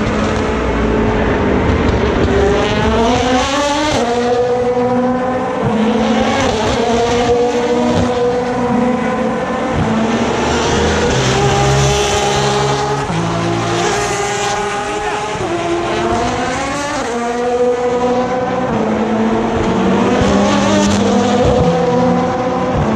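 Several endurance race cars going through a tight corner, their engine notes overlapping. The notes sweep up and down and jump in steps as the cars change gear, braking in and accelerating away one after another.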